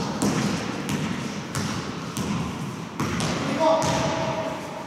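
Basketball bouncing on a gym floor during play, about five irregular thuds that echo in a large hall, with players' voices calling out.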